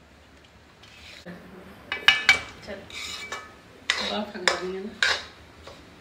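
Metal spoon scraping and knocking against a metal kadai as a thick, crumbly mixture is stirred and pressed. The scrapes and clanks start about two seconds in and come in a quick irregular run.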